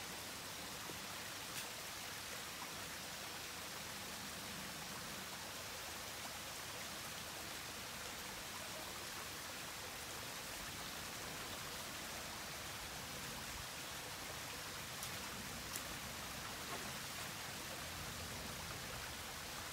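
Small woodland stream running: a faint, steady rush of water, with a few faint ticks.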